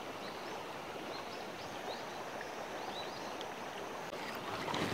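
Steady rushing of a shallow river flowing around the wading angler, with a few faint high chirps scattered through it.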